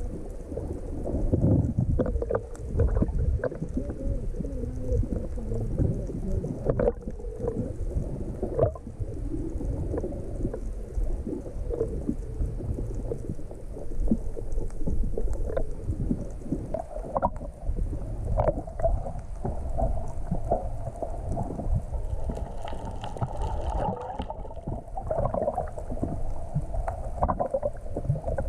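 Muffled underwater rumble and gurgling of seawater, heard from a camera held beneath the boat, with a faint steady hum coming in after about twenty seconds.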